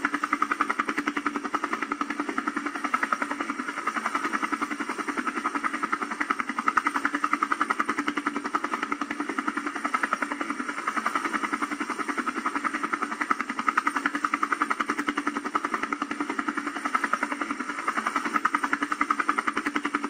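A small camera drone's rotors whirring steadily, with a fast, even flutter.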